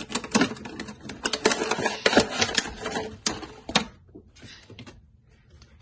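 Cardboard toy box and clear plastic packaging being opened and handled, with rapid clicks and crackles of card and plastic for about four seconds, then one brief rustle as the packaged figure slides out.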